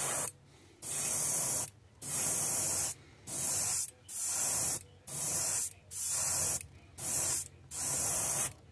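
Airbrush spraying paint in short bursts of hiss, about one a second, each starting and stopping sharply as the trigger is worked.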